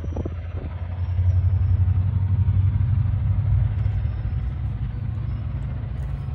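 GE ES44AC diesel-electric locomotive idling: a steady low rumble.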